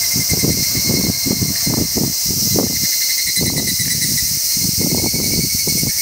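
Higurashi (evening cicada) calling: a rapid, even pulsing over a steady high insect hiss, with irregular low rumbling underneath.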